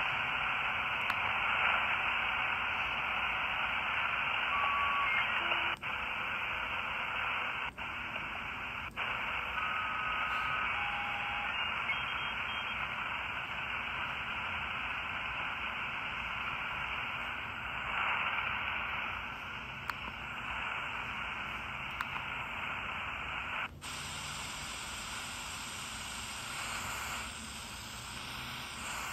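A 4732 miniature shortwave radio giving out steady static hiss with no station coming through, the sign of its poor reception. Short whistling tones come and go, and the sound briefly drops out a few times. About three-quarters of the way through, the hiss turns brighter.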